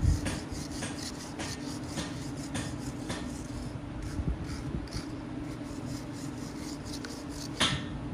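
Metalworking on a truck axle part: a steady machine hum with irregular light clicks and scrapes of metal, one louder clack near the end.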